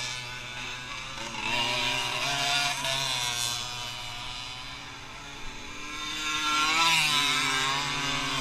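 Dirt bike engines revving as riders accelerate across the field, their pitch rising and falling, loudest about two seconds in and again about seven seconds in.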